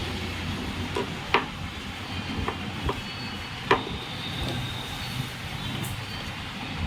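A few sharp plastic clicks and knocks as the TV's small speakers are handled, the loudest nearly four seconds in, over a steady background rumble.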